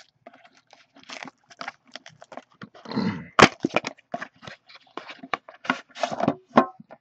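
Cardboard hobby box being torn open by hand and a metal card tin slid out of it: a busy run of rips, scrapes and clicks, with one sharp click about three and a half seconds in.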